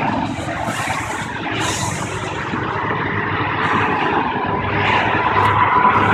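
Highway traffic passing below: steady road and tyre noise, slowly growing louder toward the end as a vehicle approaches.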